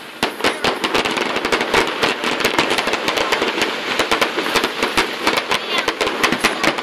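Fireworks barrage: dense, rapid bangs and crackling from many shells bursting at once, starting abruptly just after the beginning and keeping up without a break.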